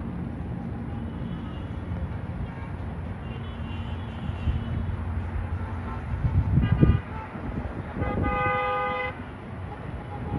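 Car horns honking from passing road traffic over a steady traffic hum: a short honk with a loud low rumble about six and a half seconds in, then a steady horn blast of about a second a little after eight seconds.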